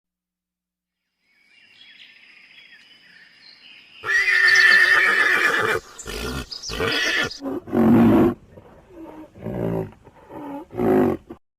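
A horse-family animal calling: a loud, high whinny starts about four seconds in, followed by a run of shorter, lower calls up to near the end.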